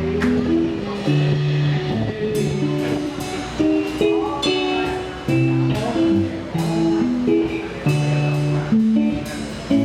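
Rock band playing an instrumental passage, guitar notes and chords changing about once a second with sharp attacks.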